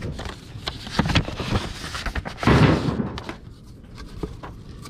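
Handling of paper and cardboard: a paper envelope and stiff card sheets shuffled and set down in a briefcase. There are a few sharp knocks, and a louder rustle about halfway through.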